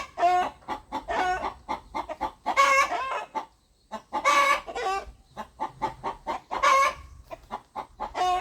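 Rooster clucking: a series of short, pitched calls, roughly one or two a second, with a brief pause a little before halfway.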